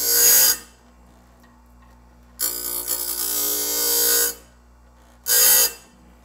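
Electric chainsaw sharpener, modified to take a bandsaw sawmill blade, grinding the gullets of the blade's teeth: a short grinding burst at the start, a longer one of about two seconds in the middle, and another short one near the end. The motor hums steadily between them. Each is a light touch of the wheel, just enough to put an edge on the tooth.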